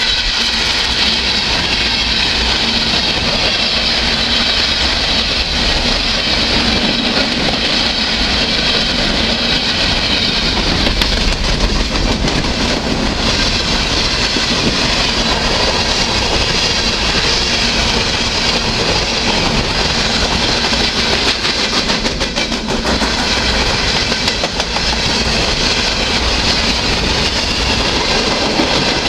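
Ballast train's freight cars rolling past at steady speed: steel wheels clicking over rail joints over a continuous loud rumble and hiss.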